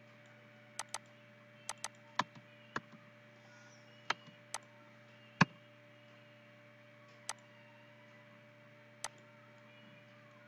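Computer mouse clicking: about a dozen sharp clicks, some in quick pairs like double-clicks, the loudest about halfway through, over a steady low hum.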